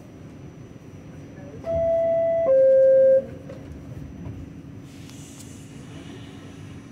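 R46 subway car's door-closing chime: two descending tones, each under a second, the classic 'ding-dong' warning that the doors are about to close. A hiss follows about two seconds later.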